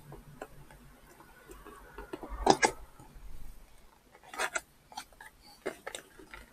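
Drone packaging being handled and opened by hand: scattered sharp clicks and crinkles. The loudest pair comes about two and a half seconds in, with more around four and a half seconds and near six.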